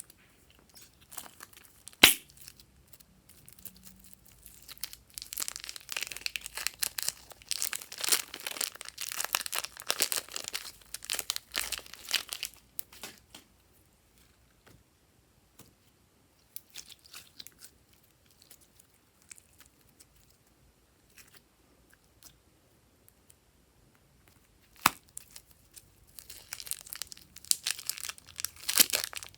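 Plastic packaging being torn open and crinkled, in two stretches of dense crackling, with a sharp click about two seconds in and another near the end.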